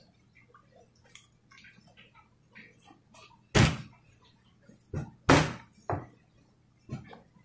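Faint crunching and mouth clicks of a fresh Carolina Reaper pepper being bitten and chewed, then several loud thumps, the loudest two about three and a half and five seconds in.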